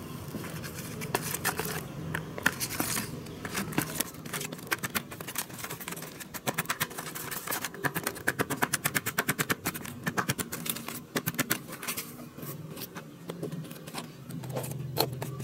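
Wooden pestle pounding and stirring a wet tomato and egg mash in a plastic tub: a run of quick knocks and clicks, densest in the middle.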